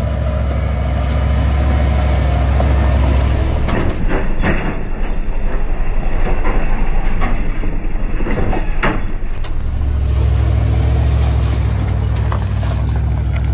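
A tow truck's engine runs with a deep steady drone as it drives past, its tyres splashing through a muddy puddle and crunching over gravel, with the towed truck camper rolling through the water behind it. For a few seconds in the middle the engine drone drops away and the splashing and crunching take over.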